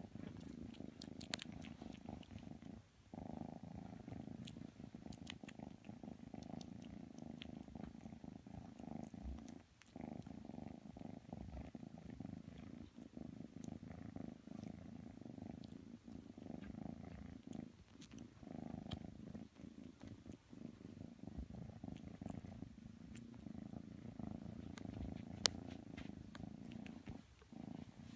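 Grey kitten purring steadily close up, the purr breaking off briefly a few times. A single sharp click near the end.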